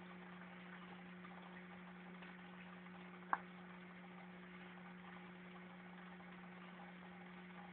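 Aquarium pump running with a steady low hum over a faint hiss, and one sharp click about three seconds in.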